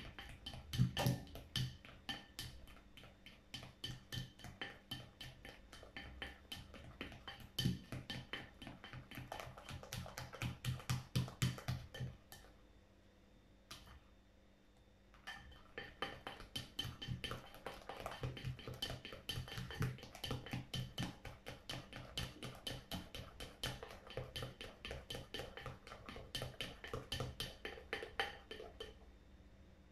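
Plastic slotted spatula stirring a wet slime mixture of glue and beer in a bowl, tapping and scraping against the bowl in a quick rhythm of several strokes a second, with a pause of about two seconds near the middle.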